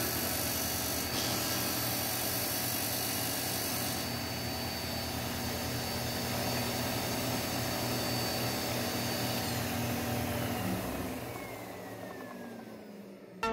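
Electric bench disc sander running with a steady motor hum and a high whine. About ten seconds in the whine starts falling in pitch and the noise fades as the disc spins down.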